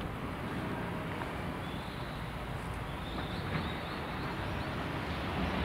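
Steady outdoor wind noise and low rumble, with a few faint high chirps midway; near the end the sound of the approaching EF210 electric locomotive and its train begins to rise.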